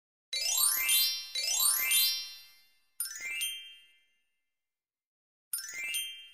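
Electronic chime sound effects: two quick rising twinkling sweeps, one after the other, then two single bell-like dings about two and a half seconds apart, each ringing away. They mark letters popping into place on an animated spelling worksheet.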